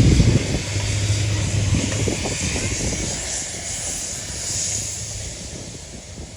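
A train running past and moving away: a low steady engine drone and a rushing hiss that fade steadily.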